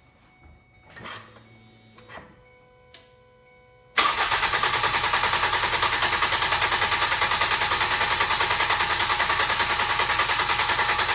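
About four seconds in, a starter motor begins cranking a Ford engine that does not start, with a fast, even, steady rhythm. The even cranking speed is the sign of healthy, even compression across all cylinders. The accelerator is held to the floor so the engine stays in clear-flood mode and only cranks.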